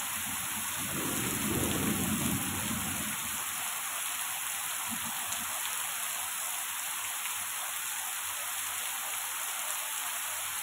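Heavy rain mixed with hail falling on trees and grass, a steady hiss. A low rumble rises about a second in and fades over the next two seconds, with a shorter one around five seconds in.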